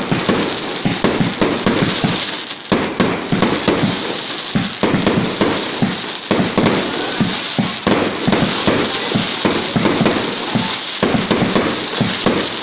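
Fireworks going off in a dense, continuous barrage of bangs and pops over steady crackling, with a short lull and then a sharp loud bang a little under three seconds in.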